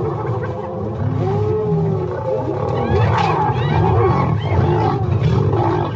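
Lions growling in a fight with spotted hyenas, whose many high, rising-and-falling whoops and giggling cries overlap above the steady low growls.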